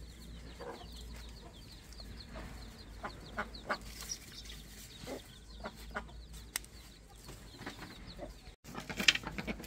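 Chickens clucking, with quick high chirps repeating throughout and scattered sharp clicks and knocks. Near the end the sound breaks off for a moment, and a burst of clattering follows.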